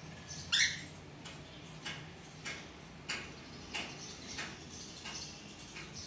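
Pet cockatiels chirping: one loud short call about half a second in, then a string of short, high chirps repeated roughly every two-thirds of a second.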